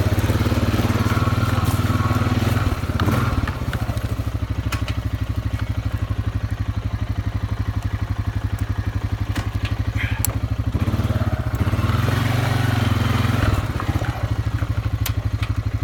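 ATV engine idling steadily, with a brief rise in its note about eleven to thirteen seconds in and a few light clicks.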